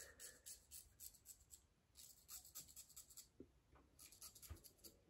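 Near silence with faint, scattered scratchy ticks: a Rockwell Model T metal safety razor being handled and turned in the fingers.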